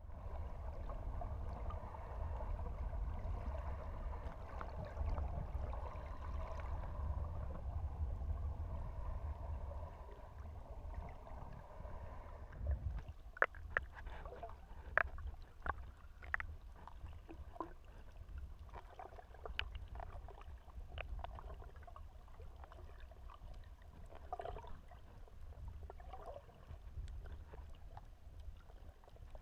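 Muffled underwater sound of moving water: a steady low rumble of water against the camera. From about thirteen seconds in, scattered sharp clicks and gurgles join it.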